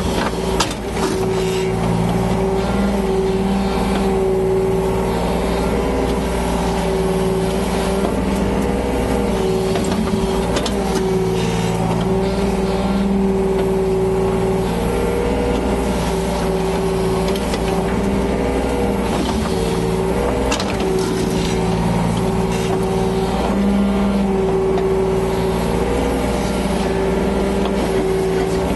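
Yanmar BV25 excavator's diesel engine running steadily at working revs, its pitch shifting slightly now and then, with a sharp knock about a second in.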